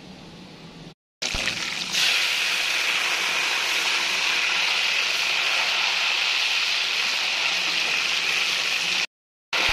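Sugar and desi ghee sizzling hard in a kadhai as a splash of water hits the hot fat and boils off, a loud steady hiss that jumps up about two seconds in. The water is what speeds the sugar's melting into syrup.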